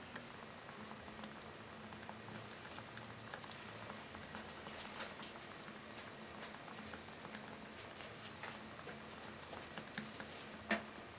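Red-hot metal ball sizzling and crackling against what it rests on: an irregular run of small pops over a steady hiss, with one sharper click near the end.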